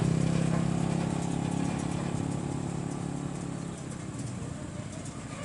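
Volvo FM truck's diesel engine pulling a 34-ton load on a lowboy trailer, a steady low engine note that gradually fades over the few seconds.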